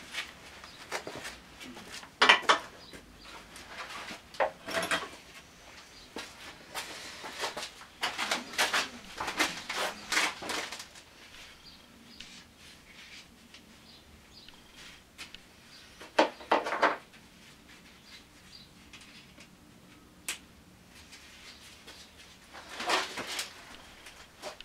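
Irregular knocks, clinks and scraping noises in scattered bursts, the sharpest about two seconds in and again near sixteen seconds, typical of tools and parts being handled.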